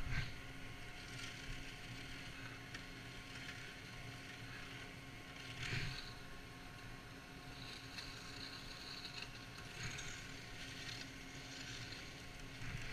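Chairlift machinery running with a steady hum, with a few knocks as the chair rides through the lift terminal, the loudest about 6 seconds in.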